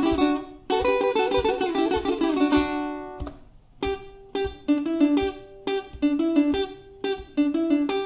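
Nylon-string classical-style guitar played fingerstyle: a quick, dense run of plucked notes and chords for about two and a half seconds, a short ring-out, then slower separate chords and notes, with a last chord struck near the end.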